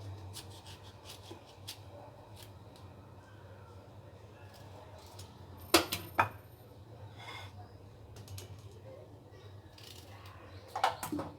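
Knife cutting lemons into quarters on a cutting board: scattered light clicks and taps, with two sharper knocks about six seconds in and a short cluster of knocks near the end.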